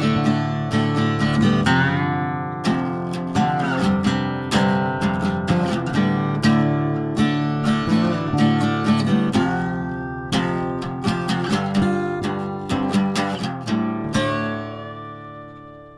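Music: acoustic guitar picking and strumming, ending on a final chord struck about 14 seconds in that rings out and fades.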